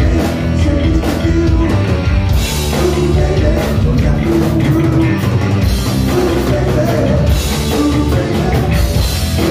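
Heavy metal band playing live at full volume: distorted electric guitar and drum kit, with no break.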